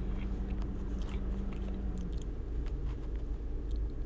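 Faint scattered crackles and clicks of hands handling a potted orchid and its dry sphagnum moss, over a steady low hum.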